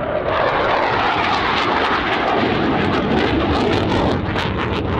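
Saab 35 Draken's afterburning Volvo RM6 turbojet flying past with the afterburner lit: a loud, steady jet roar, with sharp crackling growing in the last second and a half.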